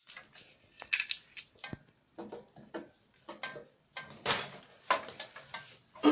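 Irregular metallic clinking and clattering: a string of light metal-on-metal knocks with a high ring, loudest about a second in and again just past four seconds.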